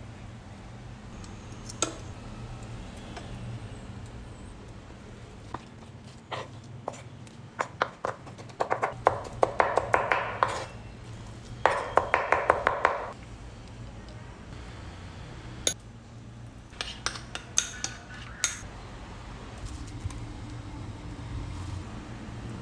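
Kitchen clatter of utensil clicks and knocks, with two quick runs of rapid chef's-knife chopping on a wooden cutting board in the middle, over a low steady hum.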